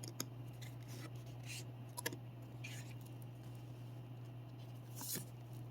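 Soft rustling and a few light ticks of cardstock oracle cards being handled and slid one over another, over a low steady hum.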